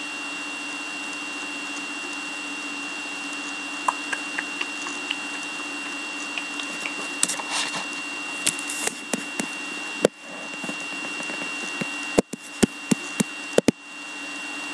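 Scattered light clicks and taps, typical of typing and mouse clicks at a computer, starting about four seconds in, with a few sharper clicks near the end. Underneath runs a steady electrical hum with a constant faint tone.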